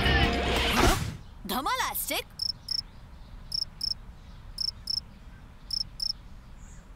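Cricket-chirp sound effect: pairs of short, high chirps about once a second over a quiet background, the stock cartoon cue for a stunned silence. Before the chirps start, a loud burst of music and effects cuts off about a second in, followed by a short rising and falling vocal sound.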